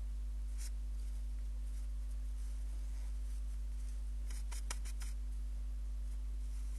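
Steady low electrical mains hum from the webcam's audio line. Faint, short high clicks come once near the start and in a quick run of five or six about four to five seconds in.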